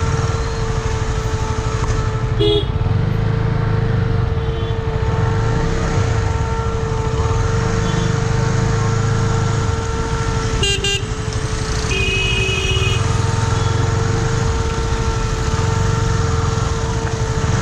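KTM 250 Duke single-cylinder engine running at low speed in stop-go traffic, its low rumble swelling and easing every couple of seconds. Vehicle horns honk briefly about two and a half seconds in and near the middle, then a longer honk of about a second just after.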